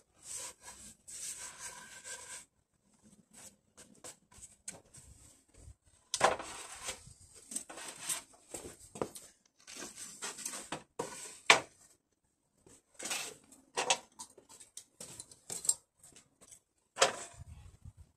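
Tongue-and-groove timber boards being handled and laid down: irregular wooden knocks, rubs and scrapes, with sharper knocks about midway and near the end.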